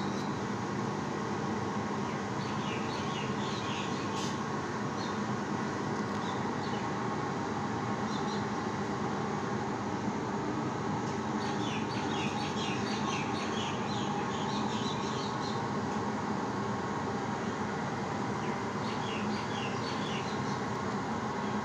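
Steady rumbling background noise with a faint hum. Small birds chirp over it in quick clusters a few seconds in, through the middle, and again near the end.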